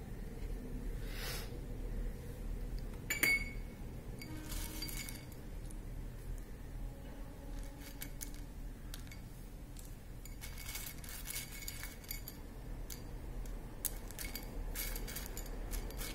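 Glassware and utensils clinking as they are handled: scattered small clicks and light ringing taps, with one sharper clink about three seconds in and a quicker run of clicks later.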